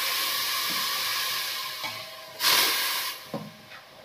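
Hissing from a pot of boiling water as powdered sugar is poured in. The hiss is steady, then surges louder about two and a half seconds in before dying down.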